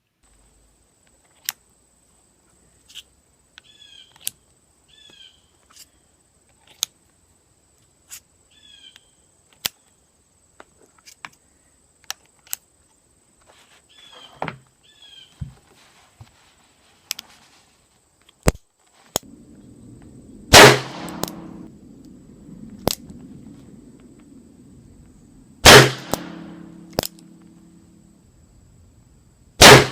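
Iver Johnson Model 1900 double-action revolver in .38 S&W being handled and loaded, a scatter of small sharp metallic clicks. Then it fires three loud shots about five seconds apart, the last right at the end.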